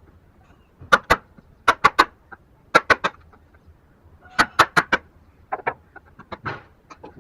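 Wood chisel being struck with a mallet while hand-cutting a wooden joint: sharp knocks in quick groups of two to four, with lighter taps near the end.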